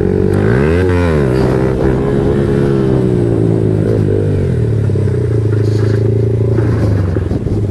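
Yamaha MT-15's single-cylinder four-stroke engine running through an aftermarket Akrapovic exhaust. It is revved once briefly about a second in, the pitch rising and falling back. A small blip comes near four seconds, and the engine then settles to a steady idle.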